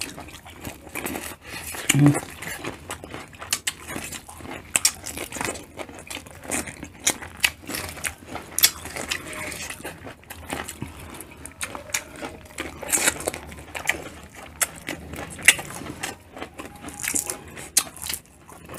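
Close-miked eating of boiled shrimp: a dense run of irregular wet clicks and crackles from chewing, lip smacking and shrimp shells being peeled by hand, with a brief voiced hum about two seconds in.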